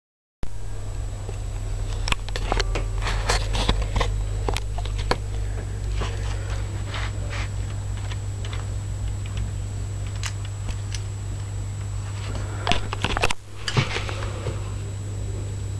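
Plastic Lego bricks clicking and knocking as the model is handled close to the microphone, over a steady low hum. The clicks come in two busy spells, in the first few seconds and again near the end.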